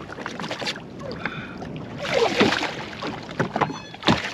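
Water sloshing and splashing against the side of a jet ski as a hooked snapper is brought to the surface and grabbed by hand, with wind on the microphone.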